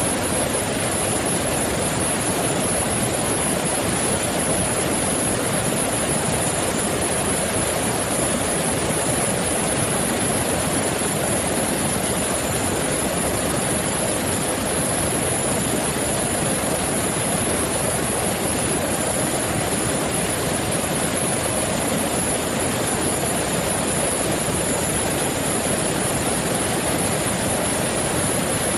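Steady, unchanging aircraft engine noise with a thin, steady high whine over it.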